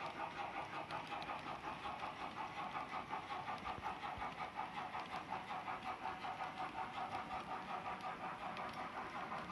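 H0-scale model freight wagons rolling past on the track, their metal wheels clattering in a quick, even rhythm of several clicks a second.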